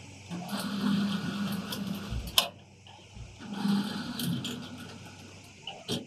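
Borewell drilling rig machinery running in two bursts of about two seconds each, with a sharp knock between them and another near the end.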